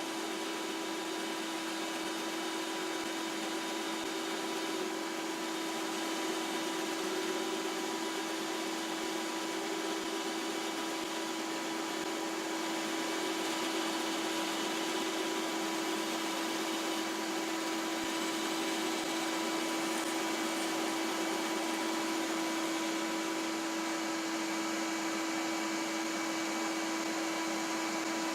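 Shop vacuum and bandsaw running steadily together while a piece of MDF is cut: an even rushing noise over a constant hum.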